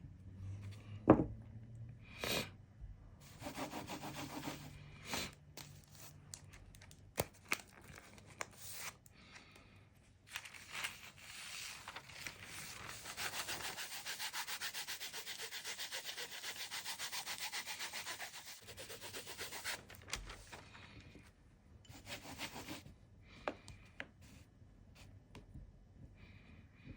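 Hands rubbing something on a hard surface: a steady rubbing sound that runs for several seconds in the middle, with scattered taps and knocks around it and one sharp knock about a second in.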